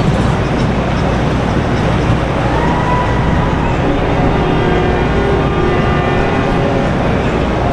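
Steady rumble of motorboat engines on the river, with a faint pitched tone about a third of the way in and several held tones in the second half.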